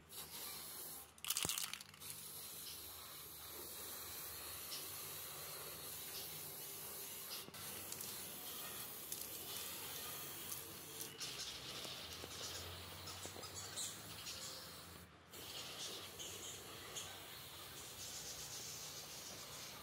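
Aerosol spray-paint can hissing in repeated passes as black paint goes onto the iron chair frame, with a short sharp noise about a second in.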